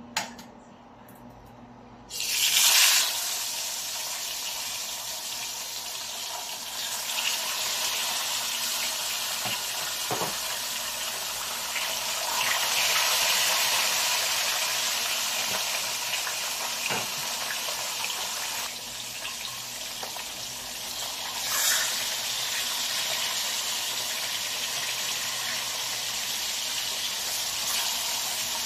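Tilapia pieces frying in hot oil in a wok: a sudden loud sizzle about two seconds in as the fish meets the oil, then a steady hiss of frying, with a brief louder flare about three-quarters of the way through.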